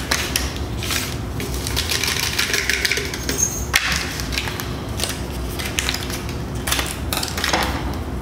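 Paper powder stick packets being torn open and crinkled by hand, an irregular run of crackling and rustling.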